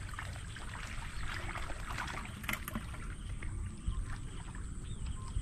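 Water swishing and lapping around a person wading waist-deep through a canal, with small scattered splashes.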